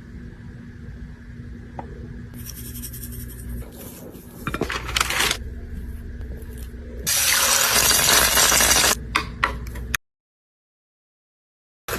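Kitchen food-preparation sounds: scraping and clinking, then a loud hiss of about two seconds followed by a few sharp clicks. The sound cuts out completely near the end.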